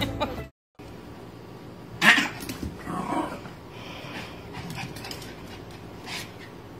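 A small black-and-white dog barks sharply about two seconds in, followed by a softer bark or yip about a second later and a few faint ones after. Music cuts off abruptly just before.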